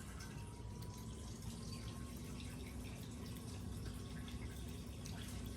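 A cat licking a wet puree treat squeezed from a tube: quick, irregular small wet lapping clicks over a low steady hum.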